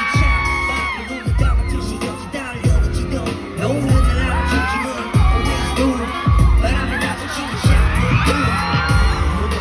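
Live K-pop song over a concert sound system, with sung vocals above heavy bass-drum hits about every 1.3 seconds.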